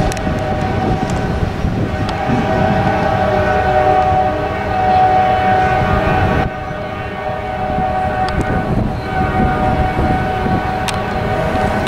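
Diesel freight locomotive horn blowing a long multi-note chord over the rumble of a passing train. It cuts back suddenly just after halfway and sounds again about two seconds later, with a few sharp clicks near the end.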